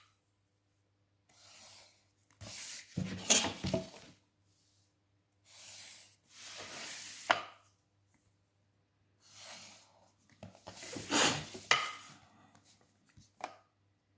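A pencil drawing straight lines on paper along a plastic 30-60 set square, in about six separate scraping strokes of one to two seconds each with short pauses between. There are a few light knocks as the set square is moved and set down.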